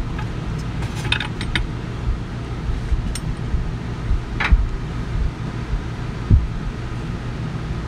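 Light metallic clicks and clinks from a socket on an extension working a valve cover bolt out of a Detroit Diesel 6V92's valve cover, a quick run of clicks about a second in, then a single click and a knock. A steady low hum runs underneath.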